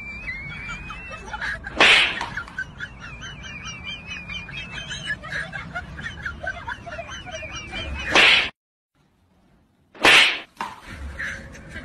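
Birds chirping steadily, broken by short loud bursts of noise about two seconds in and about eight seconds in; the sound then drops out for about a second and a half, and another loud burst follows.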